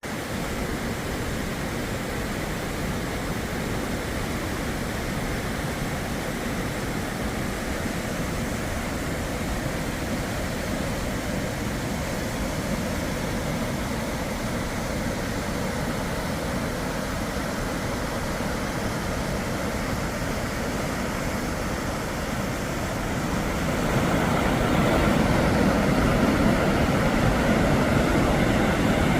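Waterfall: a steady rush of falling water, growing louder about 24 seconds in.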